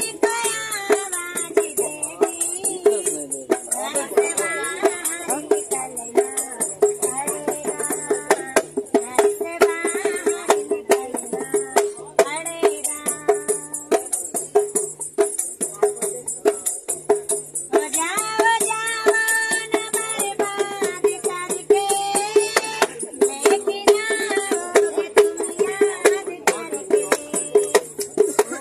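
A woman singing a song to her own dholak accompaniment: the two-headed hand drum keeps a quick, steady beat, with a repeated deep stroke under sharper slaps, while her voice carries the melody over it.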